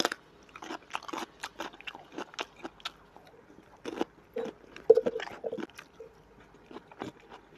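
Close-up eating sounds: a crunchy bite into a cucumber slice, then chewing with many short, wet mouth clicks, and another bite into a piece of tomato about six seconds in.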